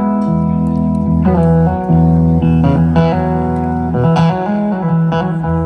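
Live band playing a slow blues-soul tune, led by an electric slide guitar whose notes glide between pitches over sustained bass and keyboard chords.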